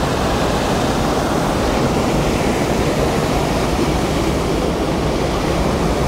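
The New Athos waterfall in full flow: a large volume of water pouring over its stone wall, a loud, steady rush.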